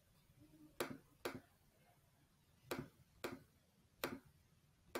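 Computer mouse clicking, six short, sharp clicks spread over the few seconds, several of them in pairs about half a second apart.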